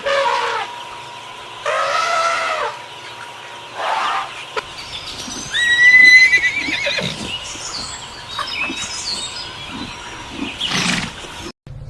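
Horse neighing several times. The loudest is a long, high, quavering whinny about six seconds in.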